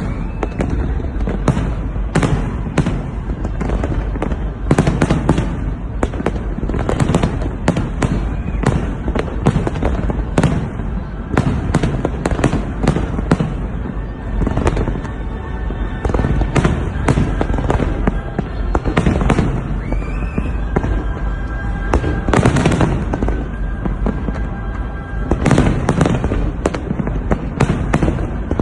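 Fireworks display going off in a dense, continuous barrage of booms and crackling bangs, several a second, the heaviest clusters a little past the middle and near the end.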